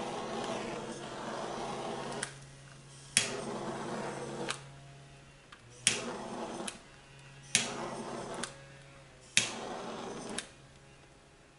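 Handheld butane torch being passed over wet acrylic pour paint. It hisses steadily at first and shuts off about two seconds in. Then it is snapped alight four more times, each time hissing for about a second before it clicks off.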